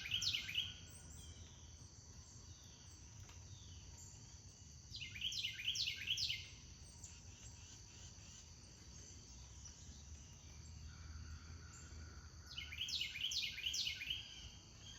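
A songbird sings a short phrase of quick, steeply falling high notes three times, roughly six seconds apart, over a steady high drone of insects.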